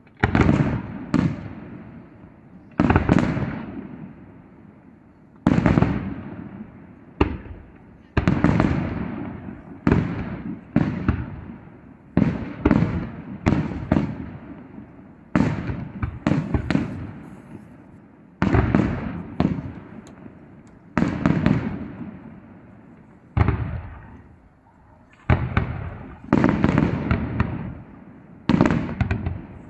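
Aerial firework shells bursting in quick succession: sharp bangs about every one to two seconds, some in close pairs, each trailing off in a rumbling echo.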